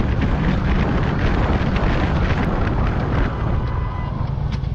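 A riding motorcycle heard from its on-board camera: loud wind rumble on the microphone mixed with engine and road noise, easing slightly near the end.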